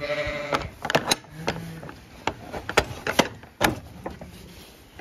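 Galvanised steel sliding bolt on a wooden stable gate being worked shut: a short squealing scrape at the start, then a string of sharp metal clanks and knocks against the gate's wood and catch.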